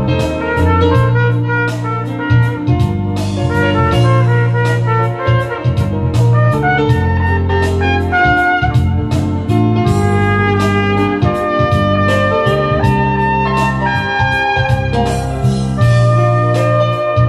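Trumpet playing a melody over a backing track with bass and drums.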